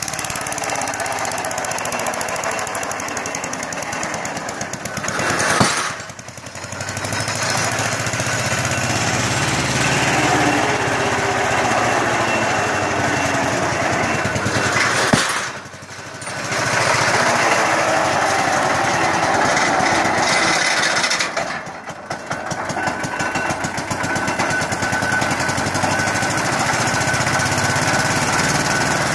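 Small stationary engine on a mechanical drop-hammer pile driver running steadily with a rapid knocking, driving the winch that hoists the hammer. A sharp heavy blow comes about five and a half seconds in and again about fifteen seconds in, each followed by a brief drop in the engine noise.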